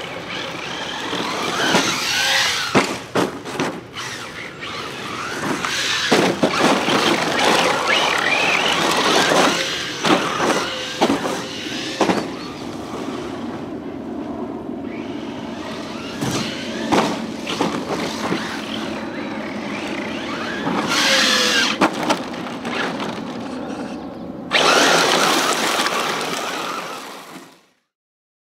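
Thunder Tiger ER4 G3 1/8-scale RC rally car driving on loose dirt: its motor whine rises and falls with the throttle over the scrabble of tyres on dirt and gravel, with repeated knocks from landings and bumps. The sound swells into a louder rush near the end, then cuts off.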